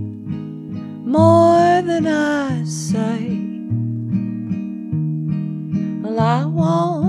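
Acoustic guitar playing an accompaniment, with a voice singing one line about a second in and another starting near the end.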